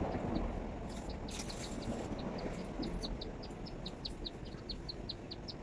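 A steady string of short, high chirps, about five a second, from a small creature, over low background noise. A few brief crinkles of aluminium foil sound about a second in, as the roast chicken is pulled apart by gloved hands.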